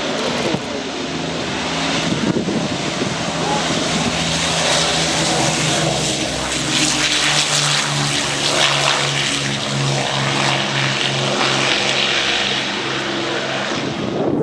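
Propeller aircraft's engines droning, growing louder over the first couple of seconds, then holding steady with a slow pulsing beat in the engine tone through the middle.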